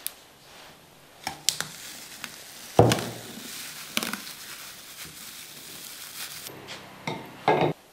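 Plastic bag crinkling as a plastic-wrapped lid is pressed onto a ceramic pickling crock, with several knocks of the lid against the crock. The loudest, deepest knock comes about three seconds in, and two more come near the end.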